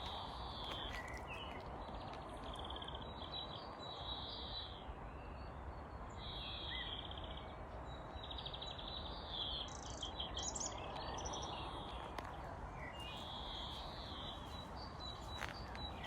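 Forest songbirds singing: short trilled phrases repeated every second or two, over a steady background hiss.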